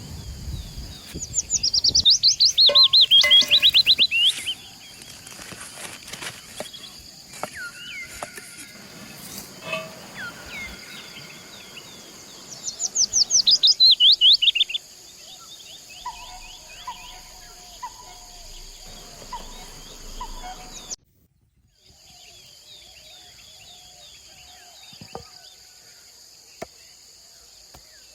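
A songbird singing a loud, fast trill of rapid notes that fall in pitch, twice, about ten seconds apart. Insects drone steadily and high throughout, with softer bird chirps in between and a brief dropout about three quarters of the way through.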